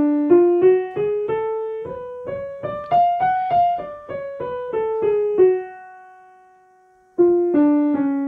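Piano, right hand alone, playing an F-sharp minor harmonic scale one note at a time. It climbs about two octaves and comes back down, pauses on a held note about five and a half seconds in, then carries on down near the end.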